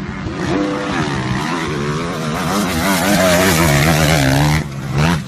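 Motorcycle engine running and revving, its pitch wavering up and down over a rush of noise. It is loudest in the middle and drops off sharply just before the end.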